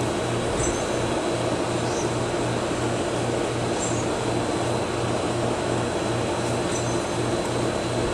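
Steady mechanical hum with a low drone that throbs about twice a second, and a few faint, short high chirps over it.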